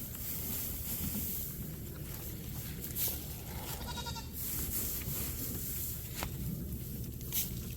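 A goat bleats once, a short wavering call about four seconds in, with a few sharp clicks around it.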